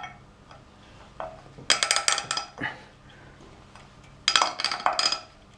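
Small steel hand tools clinking and rattling against metal in two short bursts about two seconds apart, as a coil-removal tool is swapped and tried on a stuck thread-repair insert.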